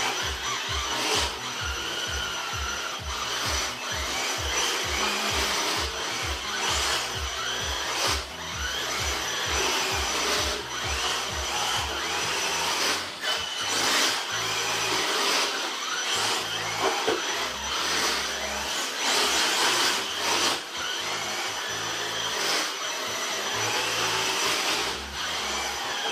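Electric motor and drivetrain of a Hot Bodies Cyclone RC drift car whining up and down as it accelerates and slides around on carpet. A steady low beat, about two a second, runs underneath for the first half.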